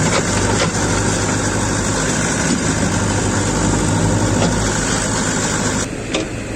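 Heavy diesel engine of earthmoving or farm machinery running steadily, with a deep steady hum under dense mechanical noise. The sound drops suddenly and thins out about six seconds in.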